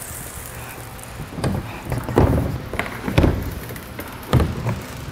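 Several dull knocks and bumps from a plastic kayak hull being lifted onto a car roof rack and knocking into place against the rack and the kayaks already loaded.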